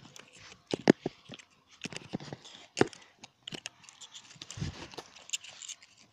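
Rustling, crunching handling and footstep noise from someone moving over a lawn with the phone, broken by sharp clicks about a second in and near three seconds, and a dull knock a little later.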